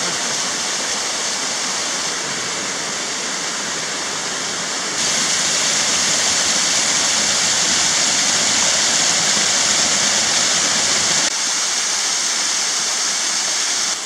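Small waterfall cascading over rocks: a steady rush of falling water. It grows louder about five seconds in and drops back near eleven seconds, where the water pours close by.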